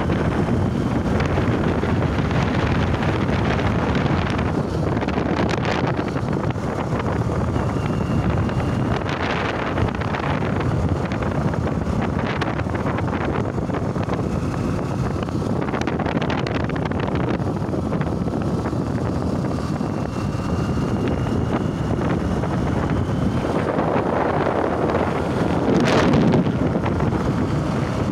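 Wind buffeting a phone microphone over the steady road and engine noise of a moving vehicle on a highway, with a louder gust near the end.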